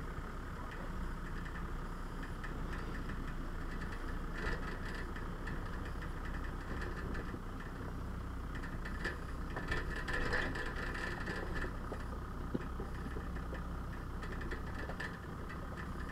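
Engine of an off-road 4x4 running steadily at low speed as it crawls down a rocky track. Scattered knocks and rattles come from the vehicle jolting over loose stones, thickest about halfway through, with a sharp knock a few seconds later.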